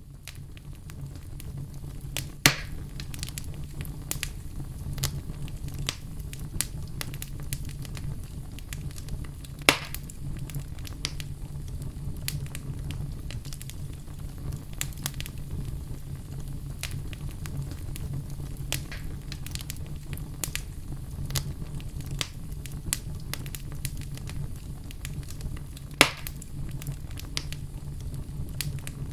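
Wood fire burning in a fireplace: a steady low rumble with frequent crackles and three louder pops, the first a couple of seconds in, one about ten seconds in and one near the end. The sound fades in at the start.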